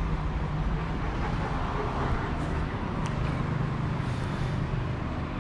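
Steady low rumble of road traffic from an outdoor street, with a few faint clicks.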